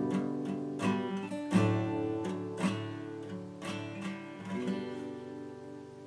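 Background music on acoustic guitar: plucked notes and strums ringing out, fading away toward the end.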